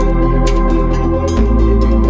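Background music: sustained organ-like keyboard chords over a deep bass note that shifts about one and a half seconds in, with light percussion ticks.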